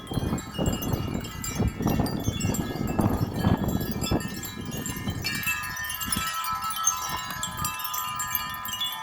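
Several wind chimes clanging hard in strong gusting wind, with gusts rumbling on the microphone during the first half. From about five seconds in, the gusts ease and the chime tubes ring on with sustained overlapping tones.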